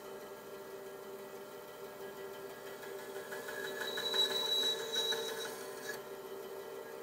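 Bandsaw running steadily while its blade cuts through a block of laminated coloured plywood. The sound swells in the middle, with a thin high whine over the cutting noise, then drops back to the motor's steady hum.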